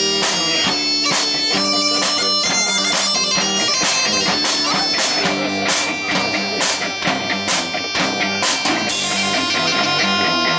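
Live band music: a mouth-blown bagpipe plays a melody over a steady drone, backed by electric and acoustic guitars and a drum kit keeping a regular beat.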